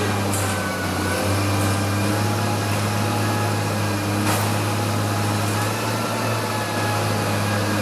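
Garbage truck's engine running steadily with a low hum, with a short metallic knock about four seconds in.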